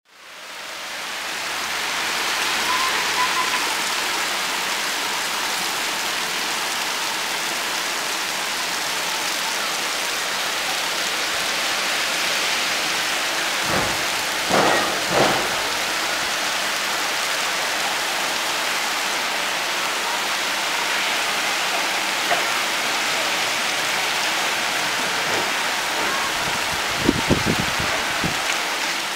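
Heavy downpour of rain pelting roofs and the street in a steady, dense hiss, fading in over the first second or two. A few short, louder knocks stand out about halfway through and again near the end.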